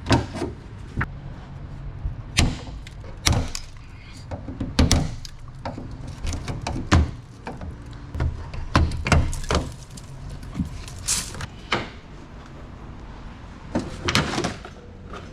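Irregular sharp knocks, clicks and thuds as a car door and its plastic trim are handled, many strikes coming in uneven succession.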